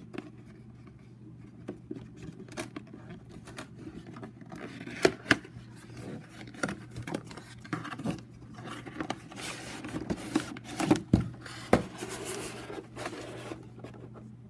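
Toy packaging being opened by hand: irregular clicks, knocks and scrapes, with stretches of tearing and rustling of the box and its insert.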